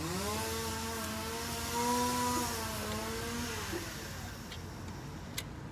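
A motor vehicle's engine, likely from a vehicle going by, rises in pitch over the first half-second, runs steadily for about three seconds and then dies away. A single sharp click comes near the end.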